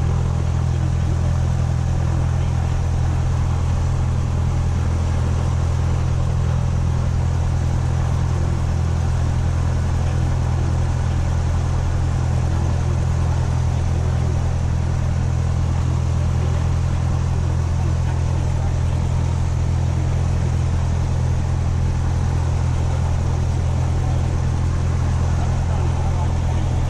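Cessna 172SP's four-cylinder Lycoming IO-360 engine and propeller running steadily at low power, heard from inside the cockpit as a loud, even drone.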